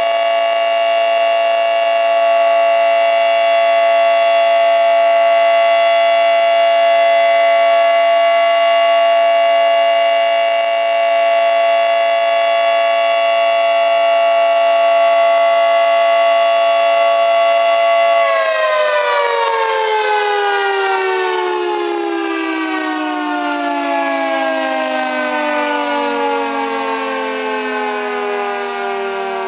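Federal Signal 2T22 dual-tone outdoor warning siren sounding a steady chord at full speed. About 18 seconds in it is shut off and winds down, the chord falling steadily in pitch and fading slightly.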